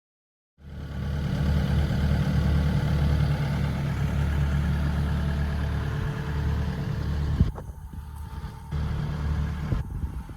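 Takeuchi TB290 excavator's diesel engine running steadily, starting suddenly about half a second in. A sharp click comes about seven and a half seconds in, after which the engine sound drops away, returns briefly and drops again.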